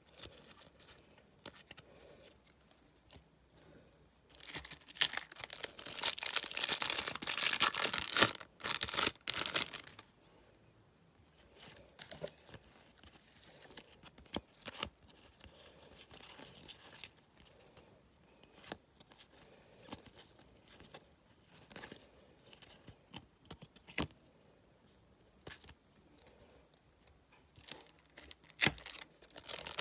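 Match Attax trading-card foil packet being torn open, a crinkly tearing that lasts about five seconds, followed by scattered soft clicks and short rustles as the cards are handled.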